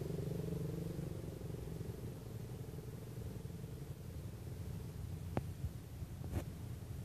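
Low steady rumble of car engine and road traffic, easing off a little after the first second, with two short sharp clicks about a second apart in the second half.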